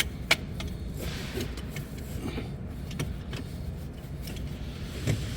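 Sharp metallic clinks and knocks of hand tools and parts being worked on a skid steer's axle, a few at a time, over a steady low rumble.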